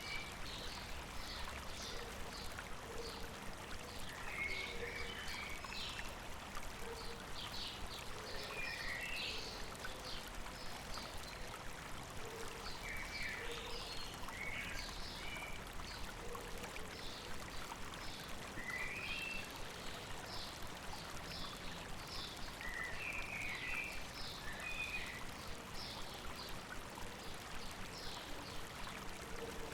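Steady rushing of a river or stream, with small birds chirping in short repeated phrases throughout.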